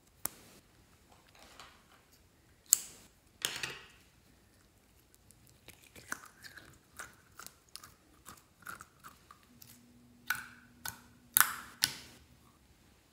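Soft pumpkin-shaped squishy being squeezed and handled over a tray of slime, giving a string of short sticky, crackly squelches and clicks, with the loudest bursts about three seconds in and again near the end.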